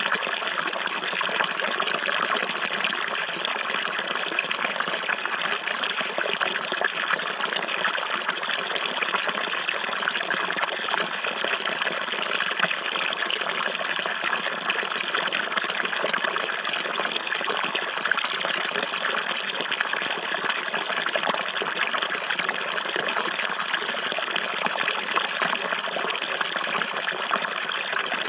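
Running water flowing steadily, an even, unbroken rushing with no low rumble.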